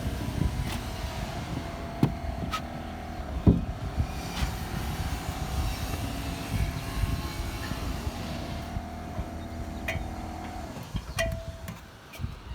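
Scattered knocks and footfalls of a person climbing down from a flat roof and walking, over a steady low rumble and a thin steady hum that stops shortly before the end.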